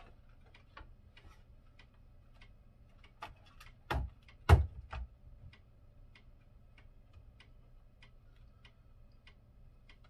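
Knocks and clatter of parts being handled and set down on a wooden table, a few louder knocks around the middle with the loudest about halfway through, over a faint steady ticking.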